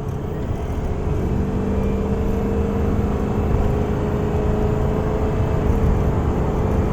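Ford 6.0 Powerstroke V8 turbo-diesel pulling hard under full acceleration. Its steady drone grows louder about a second in and then holds.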